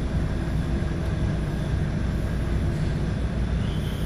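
Lorry's diesel engine running steadily, a low even rumble heard inside the cab as the truck creeps across the ferry's vehicle deck.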